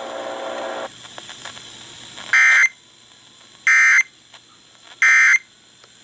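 Weather alert radio sounding three short EAS end-of-message data bursts through its speaker, buzzing squawks about a third of a second each and spaced roughly a second and a half apart, which mark the end of a National Weather Service warning broadcast.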